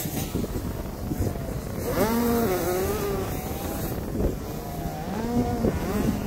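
Dirt bike engine revving up and down as it is ridden around the motocross track, its pitch rising and falling in two bursts of throttle, with wind rumbling on the microphone.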